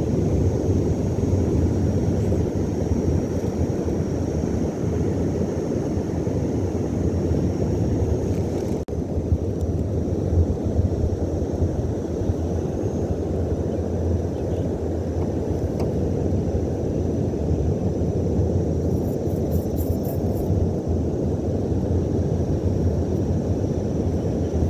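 Steady low outdoor rumble on a shell beach, with a faint steady high-pitched whine above it; the rumble dips for an instant about nine seconds in.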